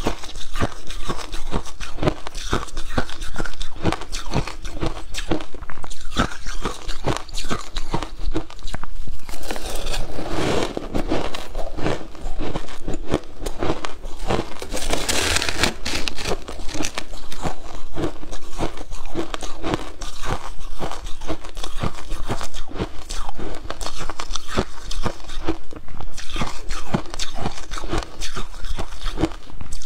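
Close-up crunching and chewing of mouthfuls of shaved ice, a dense run of sharp crackles. About halfway through, a metal spoon briefly scrapes into the ice mound.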